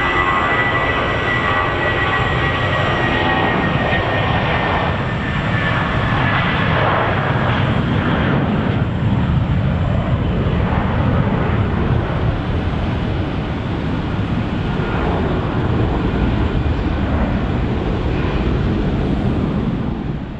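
An Airbus A319-132's twin IAE V2500 turbofan jet engines running loudly at close range. A high whine slowly falls in pitch over the first several seconds.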